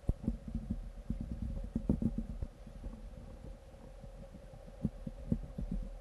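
Muffled underwater sound picked up through a submerged GoPro's waterproof housing: a low rumble with irregular soft thumps and knocks several times a second, over a faint steady hum.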